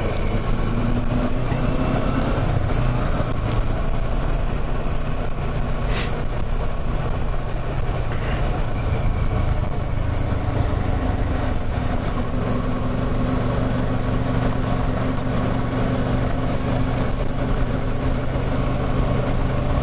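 Kawasaki Versys 650 motorcycle's parallel-twin engine running at a steady cruising pace, heard from the rider's seat along with the rush of the ride. The engine note holds steady and shifts slightly about halfway through.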